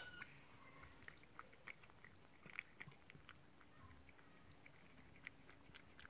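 Faint cat sounds: a mother cat chewing wet food with soft, irregular clicks, and three-week-old kittens mewing faintly, one short mew right at the start.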